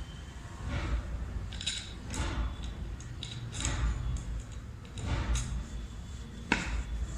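Metal parts of a ceiling fan motor clinking and scraping as they are handled, with a sharp click near the end, while the new coil is set into the fan housing and lined up with its bolt holes.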